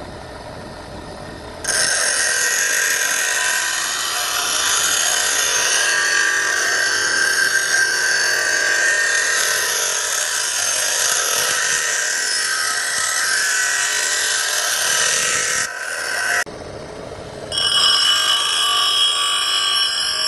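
Power tool cutting wood to shape a molding: it bites in loudly about two seconds in, runs steadily, drops off briefly about sixteen seconds in, then runs again with a steadier high whine.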